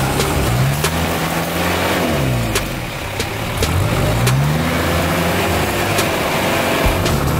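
Off-road 4x4's engine revving up and down under load as it crawls through deep mud on a winch line, the pitch rising and falling twice. Scattered sharp clicks are heard over the engine.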